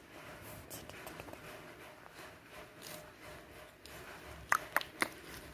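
Kittens scrabbling and rubbing against cloth on a bed, a soft rustling and scratching, with three sharp taps in quick succession a little over four and a half seconds in.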